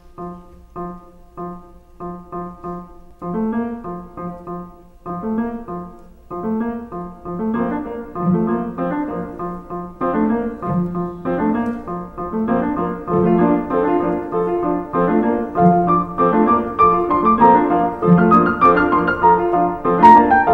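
Piano music: evenly repeated short chords at first, then more notes join in and it builds steadily fuller and louder.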